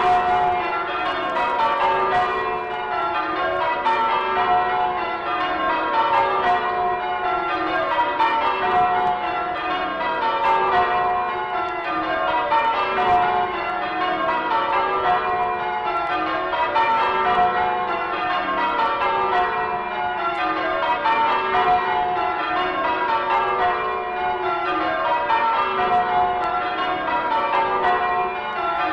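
A peal of church bells rung in changes. The bells strike one after another in rows that step down from the highest bell to the lowest, and each row repeats about every two seconds without a break.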